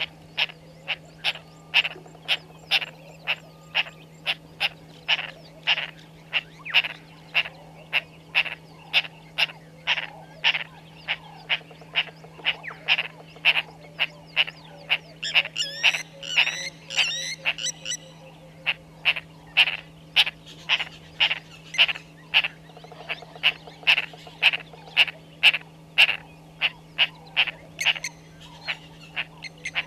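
Frogs calling at a waterhole: loud, sharp calls repeated about twice a second without a break. High twittering joins in for a few seconds about halfway.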